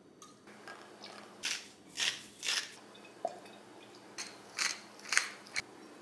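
Pepper grinder twisted over the chicken: short, crunchy grinding strokes about half a second apart, three in a row and then three more after a short pause.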